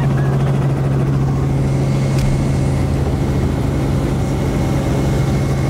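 Helicopter engine and rotor running steadily, heard from inside the cabin: a loud, even low hum.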